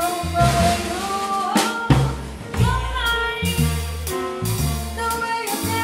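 Live jazz band: a woman singing with vibrato over a drum kit, with sharp cymbal and drum hits, and a walking line on electric bass.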